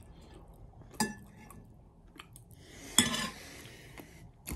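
A metal fork clinking against a ceramic bowl twice, about a second in and again about three seconds in, with a brief rustle after the second clink.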